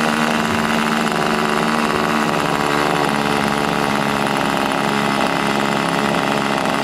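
Small nitro (glow-fuel) model boat engine idling steadily, its pitch shifting slightly about three seconds in.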